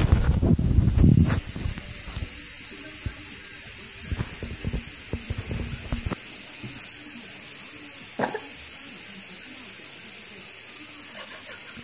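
Camera being handled and moved: loud rubbing and bumping on the microphone for about the first second and a half, then a steady hiss with a few faint clicks.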